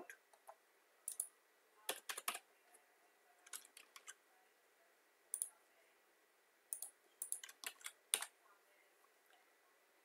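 Faint computer keyboard keystrokes, tapped in short irregular clusters with gaps between them.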